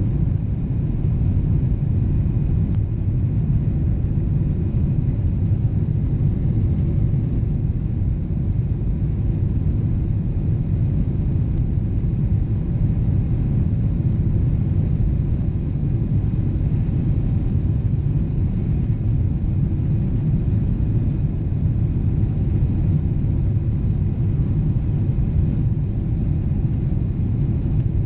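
Boeing 777 jet engines running in a steady low rumble, with no change in level or pitch.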